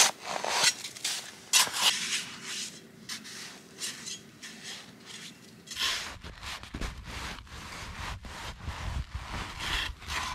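Repeated rubbing and scraping strokes. About six seconds in the sound changes and a low rumble joins underneath.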